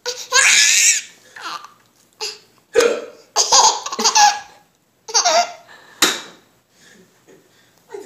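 A seven-month-old baby laughing in about six separate bursts, set off by an adult's hiccups, with sharp short hiccup sounds among them.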